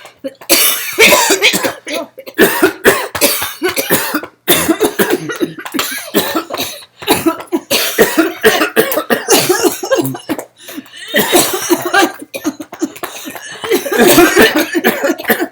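Loud, repeated hard coughing in long runs, a prolonged coughing fit with only brief pauses, about four and a half and seven seconds in.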